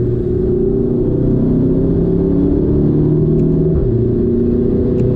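Audi TT 8S's 2.0-litre turbocharged four-cylinder TFSI engine pulling hard under acceleration, heard from inside the cabin, rising in pitch, with an upshift from third to fourth about three to four seconds in.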